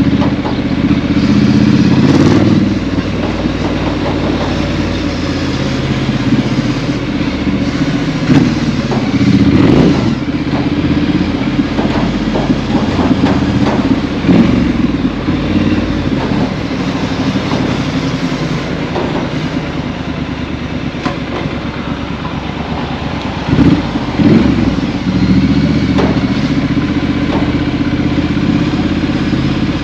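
2018 Triumph Street Scrambler's 900 cc parallel-twin engine running through a Vance & Hines exhaust as the bike is ridden, the note rising and falling with the throttle. A few short sharp cracks stand out over the engine.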